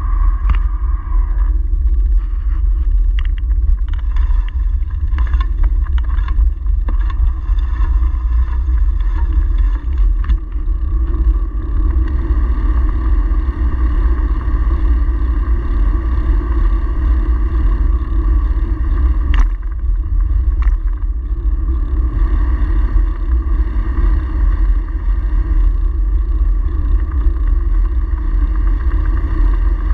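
Wind buffeting a bicycle-mounted camera's microphone, with road rumble from riding: a steady, loud low rumble broken by a few sharp clicks or knocks.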